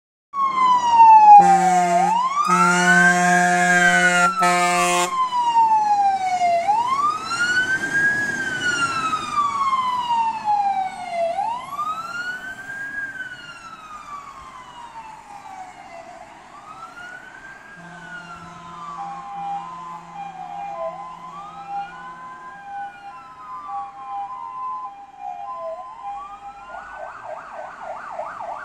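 Fire engine sirens wailing in slow rising-and-falling sweeps, getting fainter as the trucks pull away on an emergency run. Loud steady horn blasts sound over the siren in the first few seconds. Later a second siren alternates between two notes, and near the end a siren switches to a fast yelp.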